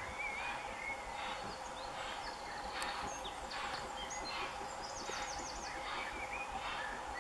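Distant steam locomotive working slowly, its exhaust beating in soft, even chuffs about every three-quarters of a second, with birds singing.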